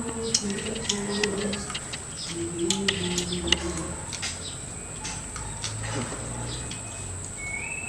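Domestic pigeons cooing: two low cooing phrases in the first four seconds, with scattered sharp clicks and taps around them.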